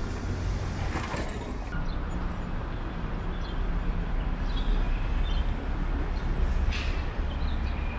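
City street ambience at a pedestrian crossing: a steady low traffic rumble, with a brief burst of noise about a second in and a few faint short high-pitched sounds.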